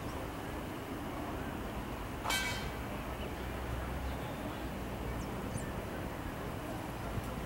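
Steady outdoor background noise with a low rumble. About two seconds in there is one brief high-pitched squeal, and a few faint high chirps follow later.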